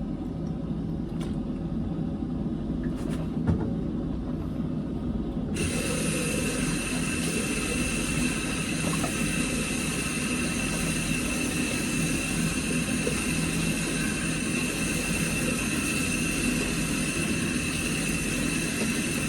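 A steady low machine hum; about five seconds in, a steady hiss with a high thin whine switches on and runs until it cuts off suddenly near the end.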